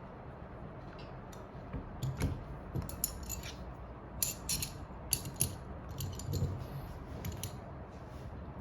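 Small repair tools and phone parts clicking and tapping against each other, in irregular clusters of short sharp metallic clicks from about two seconds in to near the end, over a low steady hum.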